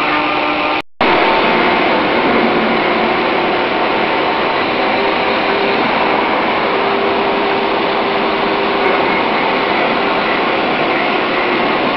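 Automatic cold saw running, its carbide-tipped circular blade cutting metal bar stock: a steady grinding whirr with a faint hum. It cuts out for an instant about a second in, then carries on.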